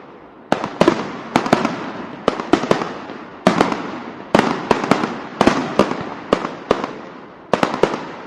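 Firecrackers going off: an irregular string of loud bangs, often two or three in quick succession, each fading away in an echoing tail.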